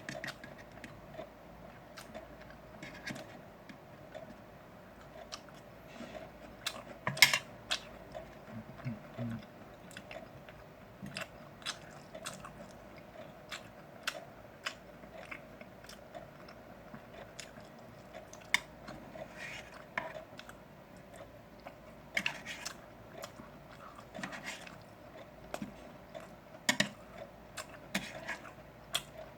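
A person chewing grilled pork belly with the mouth close to the microphone, with irregular wet clicks and smacks; the sharpest click comes about seven seconds in. A faint steady hum sits underneath.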